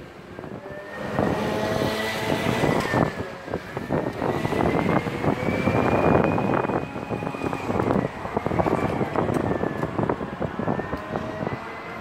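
City street traffic: vehicles running, with a thin whine that drifts slowly up and down in pitch. It grows louder about a second in.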